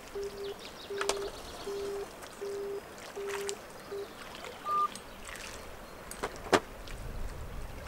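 Electronic bite alarm beeping in a run of short, uneven pulses, roughly one every three-quarters of a second, then stopping about five seconds in: the sign of a fish pulling at the line on a bite. A few sharp clicks and faint running water behind.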